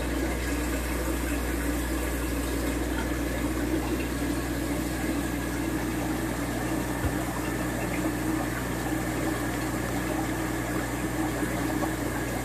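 Aquarium filter running: a steady wash of moving water over a constant low hum, unchanged throughout.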